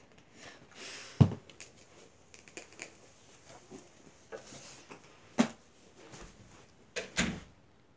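Household objects being handled and put back in place: scattered knocks, clicks and rustles, with the loudest thumps about a second in, about five and a half seconds in, and twice near the end.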